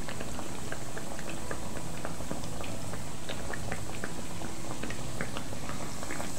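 Doughnut dough deep-frying in hot oil in a stainless steel pot: a steady sizzle and bubbling, full of small rapid crackles.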